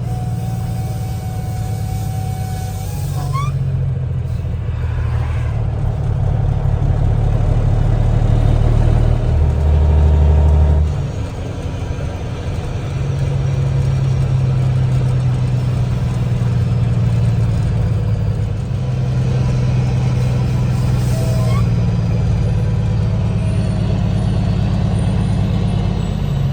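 Semi truck's diesel engine running, its low note stepping up and down several times. It builds to its loudest about ten seconds in, then drops off sharply.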